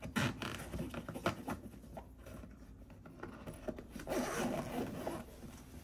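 Zipper of a soft-sided pet carrier being pulled shut in two spells, one at the start and one about four seconds in, with fabric scraping and rustling.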